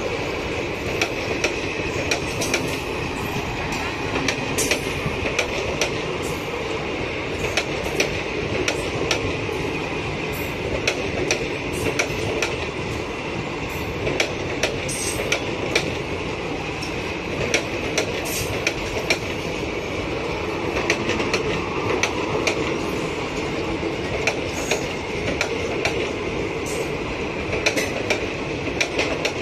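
Passenger coaches of an express train rolling past on the adjacent track: a steady rumble of wheels on rail, with frequent sharp clicks and clacks from the wheels.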